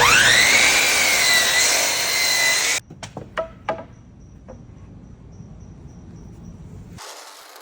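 A power saw spins up with a rising whine that settles into a steady pitch as it trims black walnut boards square, then cuts off suddenly after about three seconds. A few sharp knocks follow.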